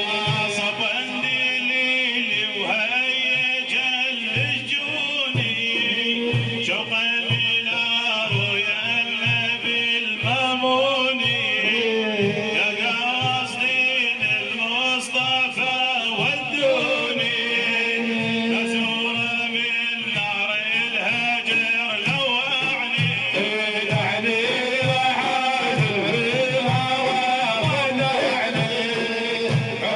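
Middle Eastern devotional music: a wavering melody over a steady low drum pattern, with no clear sung words.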